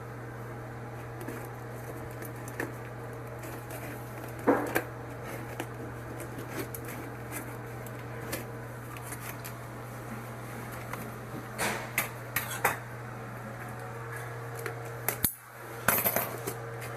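Scattered clicks and clatters of small hard parts and tools being handled, with a few louder knocks, over a steady low hum.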